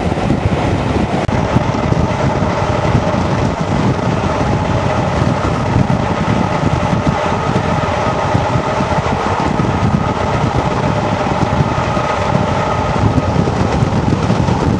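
Passenger train running at speed, heard from an open carriage window: a steady rush of air and wheels on the rails, with a steady drone from the hauling locomotive, D1015 Western Champion, a Class 52 diesel-hydraulic.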